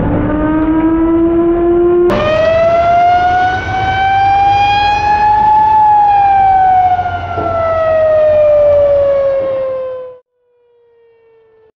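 Whelen Alpha siren on a Volvo FL fire engine sounding a slow wail: the pitch climbs, jumps up about two seconds in, peaks around six seconds and then falls away. It cuts off sharply near the end, leaving only a faint falling tone.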